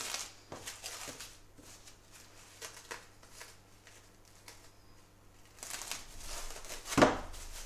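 Soft handling noises of a block of puff pastry being pressed and moved on a worktop, then plastic film rustling over the dough near the end. A single sharp knock about seven seconds in is the loudest sound.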